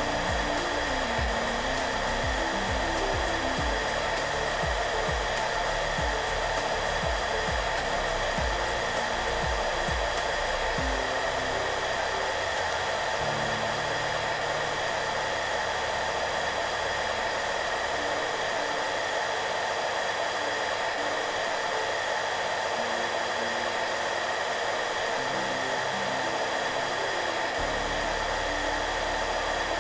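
Hair dryer blowing steadily with an even whooshing hum, mixed with soft background music. The music's low notes are underneath, with a light low beat in roughly the first third that gives way to held bass notes.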